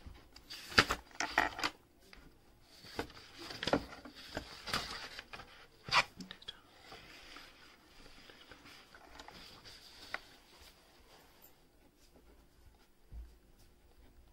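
Paper pages being turned and handled: sharp paper crackles in the first six seconds, then softer rustling that dies away about eleven seconds in.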